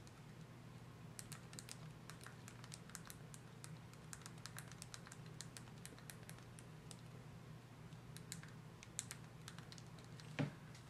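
Faint typing on a computer keyboard: irregular light key clicks over a low steady hum, with one louder knock near the end.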